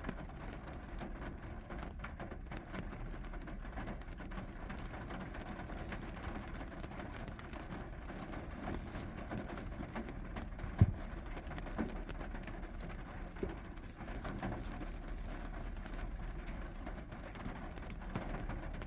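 Steady rain with a low background rumble. A single sharp knock a little past halfway, then two fainter ones.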